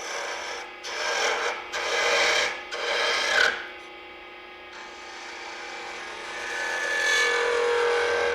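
A half-inch gouge cutting a small wooden ball as it spins between cone centers on a wood lathe: three short cuts in the first few seconds, then a longer, louder cut near the end. That last cut carries a steady whine as the tool, working away from the tool rest, starts to vibrate.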